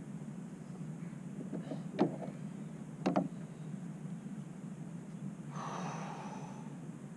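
Hard knocks of gear or hands against a plastic fishing kayak: two sharp knocks about a second apart, the second a quick double, over a steady low rumble, then a brief rustle of handling near the end.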